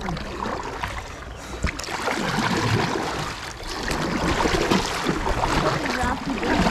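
Kayak paddles splashing and dipping into river water with repeated strokes.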